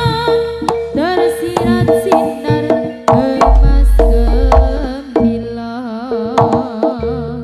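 Javanese gamelan accompaniment for a barongan dance: quick hand-drum (kendang) strokes over a held note, with a wavering melody line above. A deep low boom sounds about three and a half seconds in and lasts over a second.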